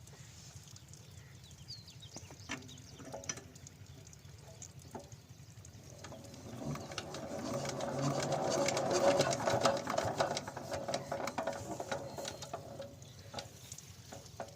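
8 hp diesel pump engine running with a rapid, steady clatter. A louder swell of noise builds up past the middle and fades again near the end.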